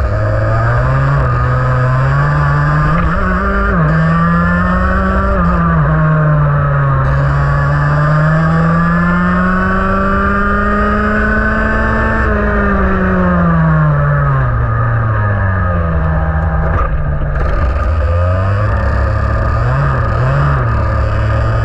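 IAME X30 125cc two-stroke kart engine running hard through a lap, its revs repeatedly climbing and falling away. The pitch rises to its highest about twelve seconds in, drops steeply as the kart slows for a corner, then picks up again.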